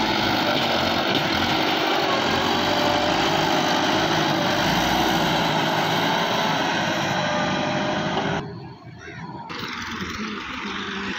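Farm tractor's diesel engine running steadily as it pulls a trolley heavily loaded with soil. About eight seconds in the sound cuts abruptly to a quieter tractor engine.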